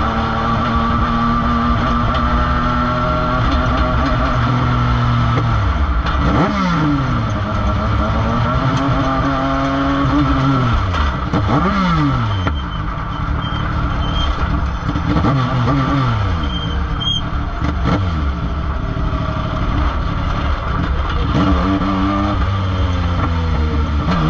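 Dirt-track race car engine heard from inside the cockpit, running steadily at speed, then dropping sharply in pitch several times as the throttle is lifted, with lower, uneven running in the second half and a brief pickup again near the end.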